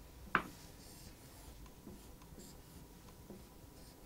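Felt-tip marker drawing on a whiteboard: one sharp tap about a third of a second in as the tip meets the board, then faint, scattered scratchy strokes.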